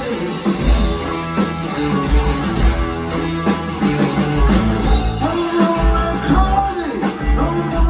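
Live rock band playing an instrumental passage: guitars, bass and drums.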